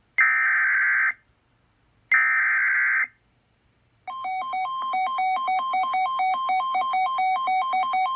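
Emergency Alert System SAME header: two one-second bursts of screeching digital data tone about two seconds apart. About four seconds in, the two-tone EAS attention signal starts, alternating between a lower and a higher pitch about four times a second, announcing the severe thunderstorm warning that follows.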